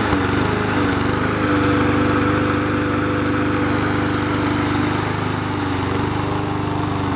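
A new gas push mower's small engine running steadily at one even speed, just after its first-ever start.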